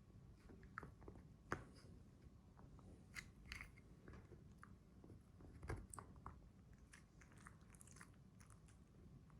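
A dog chewing a treat: faint, irregular crunches and clicks of teeth on a hard snack.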